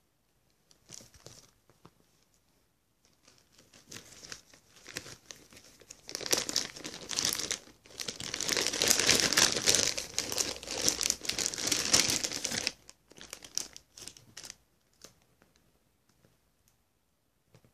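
Packaging of a reborn doll kit being unwrapped by hand: crinkling and rustling, in a few bouts, the longest and loudest from about six to thirteen seconds in, then trailing off into a few light rustles.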